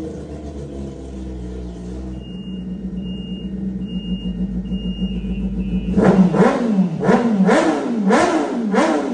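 Kawasaki ZX-10R's inline-four engine idling steadily. About six seconds in it is revved in a quick run of throttle blips, about five in three seconds, each rising and falling sharply.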